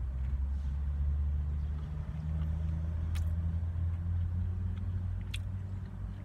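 Vehicle engine idling, a steady low hum heard from inside the van's cabin, with two sharp clicks about three and five seconds in.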